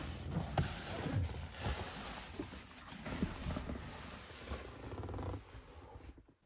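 Rustling of a sleeping bag's slick shell with soft bumps and thumps, as someone shifts about on the bed and handles the camera close to the microphone; it dies away about five and a half seconds in.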